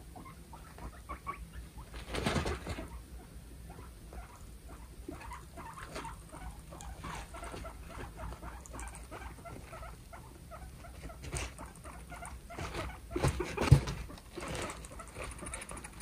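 Guinea pig eating hay: a steady run of small crunches and crackles as it chews and tugs the stalks, with two louder, noisier rustles, about two seconds in and again about thirteen seconds in.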